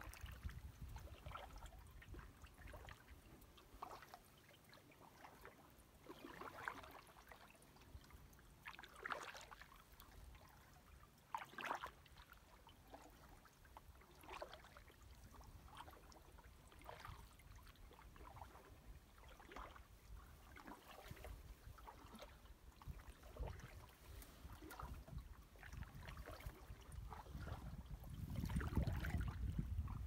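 Canoe paddle dipping into calm water, with faint drips and small trickles from the blade every second or two. A low rumble sits underneath, rising near the end.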